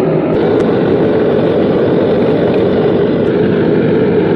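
Loud, steady machine noise, a dense rumbling hiss without breaks.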